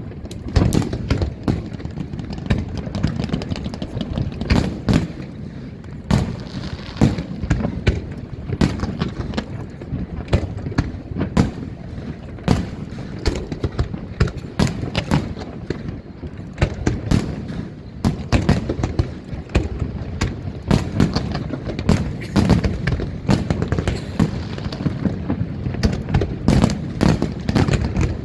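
Fireworks display: many aerial shell bursts and crackling reports going off in quick succession, several a second at times, over a continuous low rumble.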